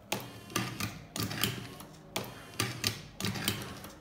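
Motorised Top-O-Matic cigarette-rolling machine (Prof Matic T3) running on its start button: the electric motor hums while the filling mechanism gives a run of irregular mechanical clacks.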